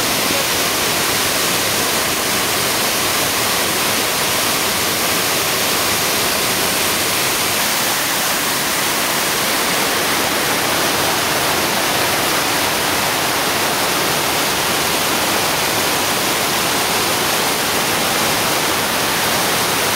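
Waterfall and stream water rushing: a steady, even hiss with no breaks.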